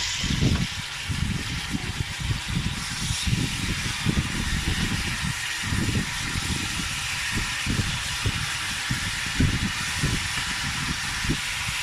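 Pork chops frying in hot olive oil in a covered pan: a steady sizzle with constant irregular spattering and crackling.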